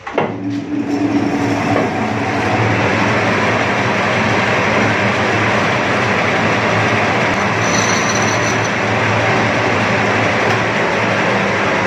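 Metal lathe starting with a clunk and spinning up, then running steadily while a tool bit cuts a step into the face of a Tullu water-pump housing held in the chuck. A brief high squeal from the cut comes about eight seconds in. The cut lowers the ring so the impeller runs closer, to restore the pump's lost pressure.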